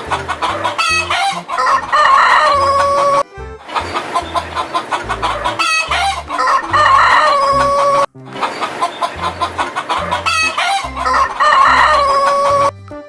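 Chickens clucking and a rooster crowing, the same few-second sequence heard three times in a row, each ending in a long held crow. A music track with a low beat plays underneath.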